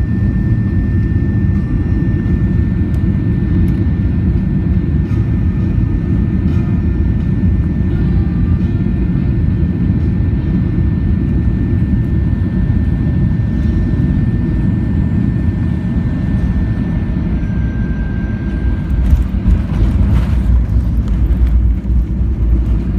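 Jet airliner cabin noise by the wing: a steady low rumble of engines and airflow with a thin, steady whine above it that drops a little in pitch about three-quarters of the way through. In the last few seconds the rumble turns louder and rougher.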